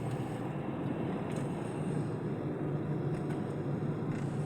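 Steady engine and road rumble of a car driving, heard from inside the cabin.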